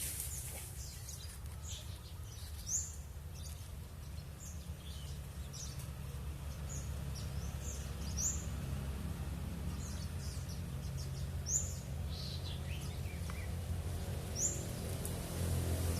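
Several small wild songbirds calling back and forth in short, high chirps, with a few sharper, louder chirps standing out, over a steady low rumble.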